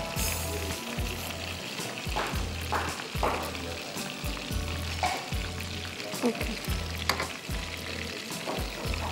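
Breaded chicken pieces deep-frying in hot oil: a steady sizzle with small crackles. A low, even beat of background music runs underneath.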